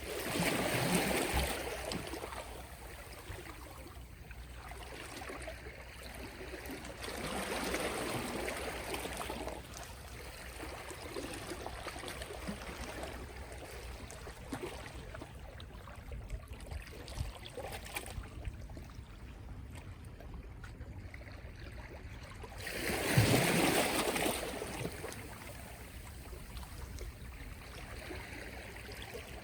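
Small, gentle sea waves washing onto the shore in three swells, the loudest about 23 seconds in, with soft trickling and light clicking between them as the water drains back.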